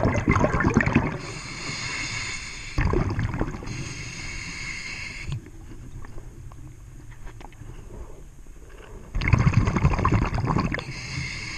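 Scuba diver breathing through a regulator, heard underwater: a high hiss on each inhalation alternating with a rumbling rush of exhaled bubbles. The bubble rushes come at the start, briefly near three seconds and loudest about nine seconds in, with a few quieter seconds between.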